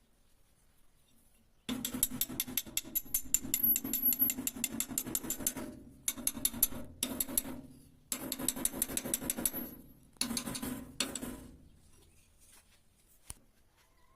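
A small electric power tool running in about four short bursts with a rapid, even pulsing beat.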